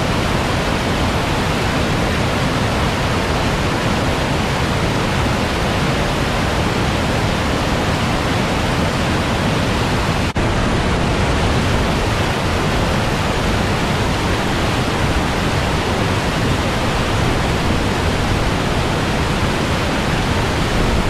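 Steady, loud rush of a whitewater creek rapid pouring over a steep drop, with one brief dip about halfway through.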